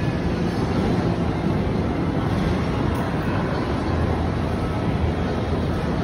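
Steady low-pitched background rumble of a large indoor hall, with no distinct events standing out.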